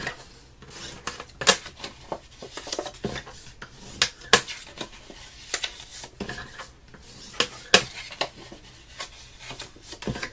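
Brown cardstock being folded along its score lines and creased with a bone folder: irregular paper crackles and scrapes, with a sharp tap on the board every second or so.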